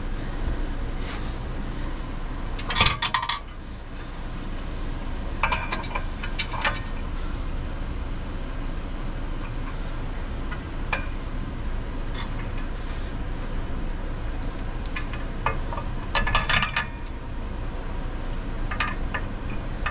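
Metal clinking and rattling in several short clusters, like tools or steel parts being handled, over a steady low rumble.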